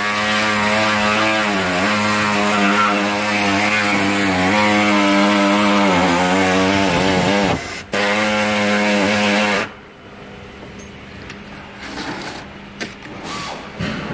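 Handheld power tool cutting the sheet metal of a replacement car quarter panel at its seam with the roof. It gives a steady whine whose pitch sags briefly under load, pauses for a moment about two-thirds of the way in, runs again, and stops suddenly near the ten-second mark. Light knocks of handling follow.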